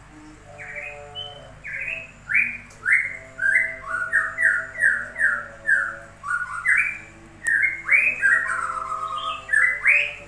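A songbird singing a long run of loud whistled notes, each sliding downward, at about two a second, with a few rising notes near the end.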